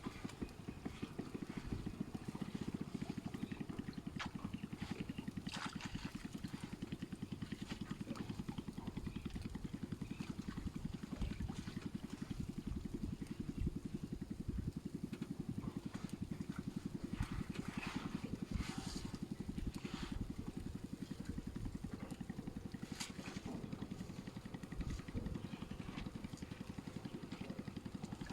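A small engine running steadily, with a fast even chugging and scattered light clicks and knocks over it.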